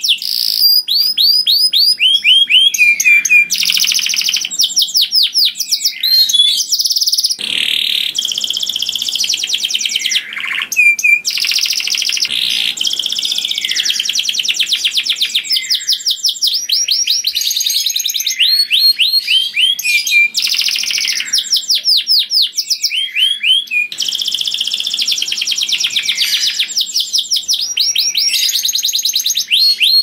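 Domestic canary singing a loud, nearly continuous song: fast rolling trills of rapidly repeated notes, each sweeping down in pitch, with only brief breaks between phrases.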